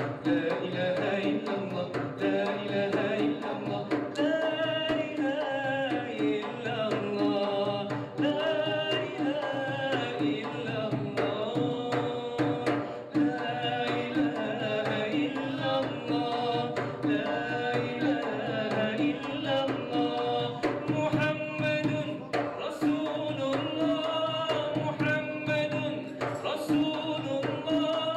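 A man sings a long, ornamented devotional melody into a microphone without clear words, over steady hand-drum percussion.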